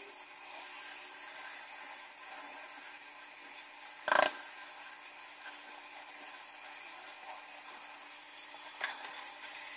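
Kitchen tap running into a stainless steel sink while a plastic hair brush is rinsed and rubbed under the stream. About four seconds in there is a single loud knock with a brief ring.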